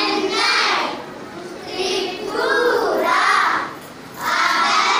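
A group of young girls chanting in unison, sing-song, in phrases about a second long with short breaks between them.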